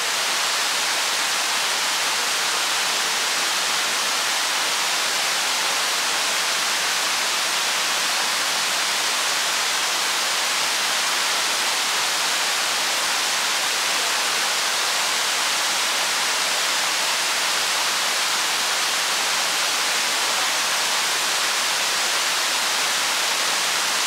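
Steady rush of a waterfall cascading over rock tiers, an even hiss of water with little low rumble.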